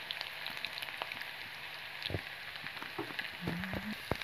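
Chopped onions sizzling and crackling in hot oil in a steel wok, a steady frying hiss with scattered small pops. A few sharp clicks come near the end.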